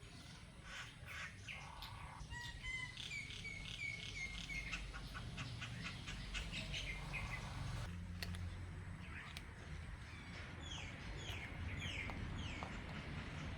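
Small birds chirping and singing: runs of quick repeated short notes, with a series of short falling notes near the end.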